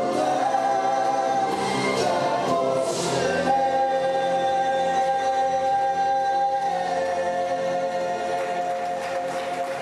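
Male gospel vocal group singing in harmony, settling about three and a half seconds in into long held chords. The chord shifts once and the sound slowly gets quieter near the end.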